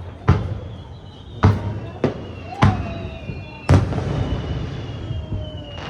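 Aerial fireworks shells bursting overhead: five sharp booms in under four seconds, each trailing off in a rumbling, crackling echo.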